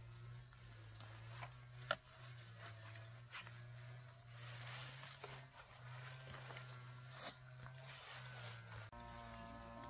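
Rustling and crackling of leafy wild-vegetable shoots handled and dropped into a woven bamboo basket, with a sharp snap about two seconds in and another, softer one about seven seconds in, over a steady low hum.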